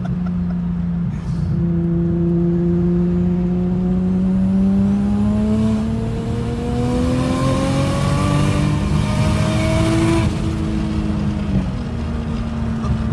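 Nissan Skyline R32's turbocharged straight-six heard from inside the cabin, at first holding a steady cruise. It then accelerates, its note rising for about six seconds, drops suddenly as the throttle comes off about two-thirds of the way in, and settles back to a steady cruise.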